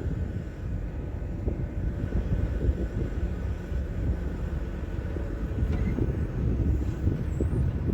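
Mecalac 12MTX mobile excavator's diesel engine running steadily.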